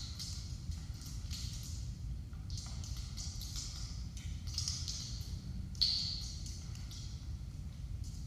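Soft swishes and light taps of bare feet brushing and stepping on a wooden floor, roughly one a second, with one sharper thump about six seconds in, over a steady low room hum.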